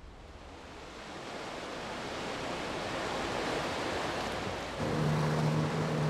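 Sea water washing and lapping, fading in and slowly growing louder. A low steady hum joins about five seconds in.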